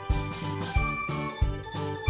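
Background music with a steady beat and bell-like high notes.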